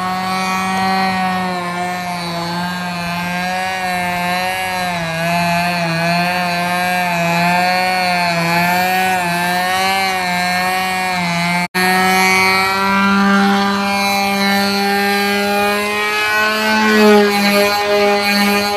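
Radio-controlled aerobatic model airplane's engine running, its pitch wavering up and down as the throttle is worked to hold the plane in a nose-up hover. After a split-second dropout about two-thirds of the way through, the note runs steadier and climbs near the end.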